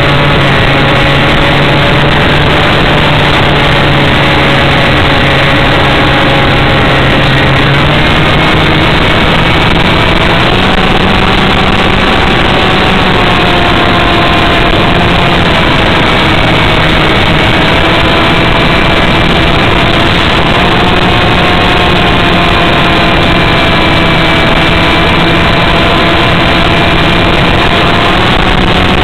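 Loud, steady rush of air over a model aircraft's onboard camera in flight. Under it runs a droning motor tone that shifts up in pitch about eight to ten seconds in.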